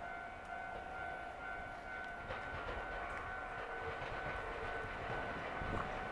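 Level crossing warning alarm ringing steadily, with the low rumble of an approaching train building toward the end.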